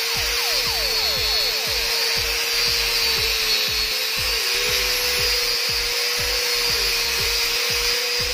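Electric angle grinder running against blue PVC plastic, grinding and cutting into its edge: a steady high motor whine with a dense hiss of abrasion, its pitch dipping slightly as the disc bites.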